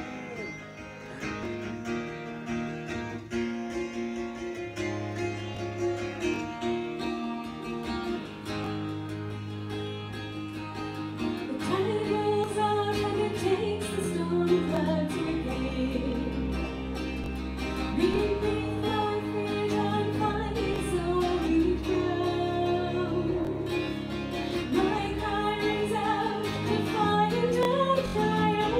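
Irish bouzouki and bowed cello playing a folk song, the bouzouki plucked over low held cello notes. A woman's solo singing voice comes in about twelve seconds in and carries on with them.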